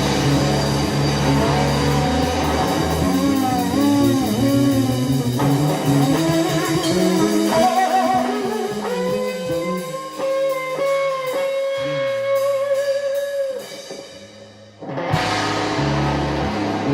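Live blues-rock trio of electric guitar, bass and drum kit playing. About nine seconds in, the electric guitar holds a long sustained note with vibrato while the band thins out. The sound drops low just before fifteen seconds, then comes back loud abruptly.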